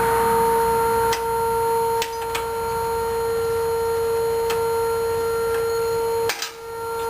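A steady, high-pitched mechanical whine held at one pitch, with a few sharp clicks scattered through it.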